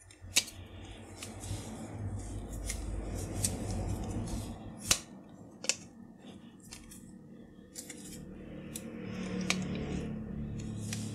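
Handling noise of a 3D-printed plastic focus platform, with scattered sharp clicks and scrapes as a metal tool turns the threaded adjustable articulations loose. A low rumble of the parts being held and shifted runs underneath.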